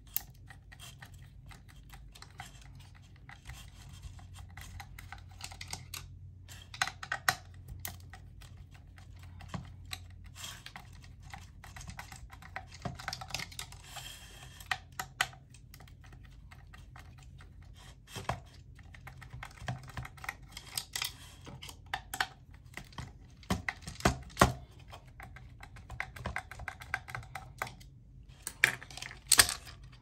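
Hard plastic parts of a Dyson BP01 fan impeller and motor housing clicking, scraping and rattling in the hands as they are twisted and prised apart. The small clicks come irregularly, with a few sharper snaps in the second half.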